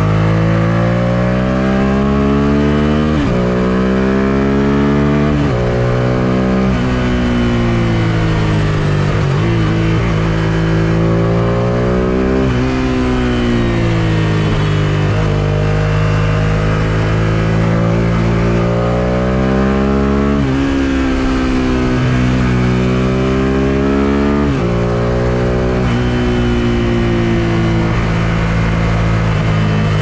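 1999 Suzuki SV650S's V-twin engine pulling up through the revs and easing off, its pitch climbing and then dropping sharply at each of several gear changes, with stretches of falling revs in between. Wind rush runs under it.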